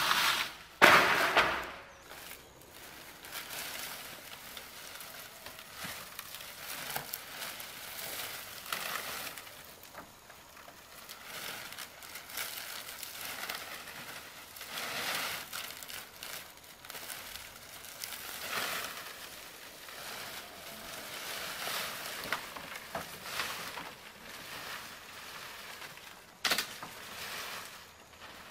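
Dry leaf thatch rustling and crackling as it is handled and laid on a roof, in short irregular bursts, the loudest about a second in.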